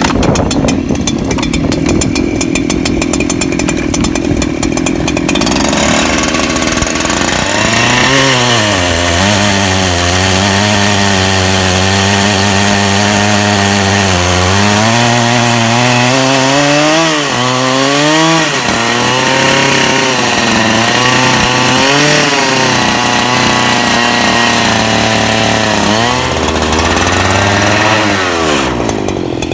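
Chainsaw mill ripping a log lengthwise. The chainsaw engine runs at high revs at first, then its note drops and wavers up and down as it labours under load in the cut. It stops just before the end.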